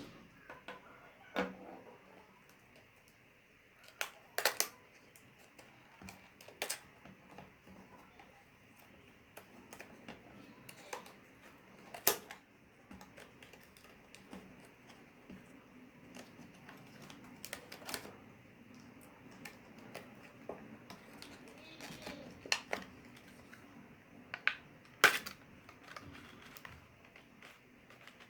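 Earphone packaging being handled and opened: irregular sharp clicks and taps of plastic and cardboard, with light rustling between them.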